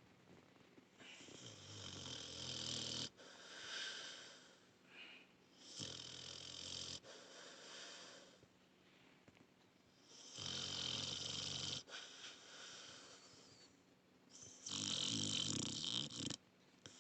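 Pit bull snoring in its sleep: about four snores, each a second or two long and a few seconds apart, the last one the loudest.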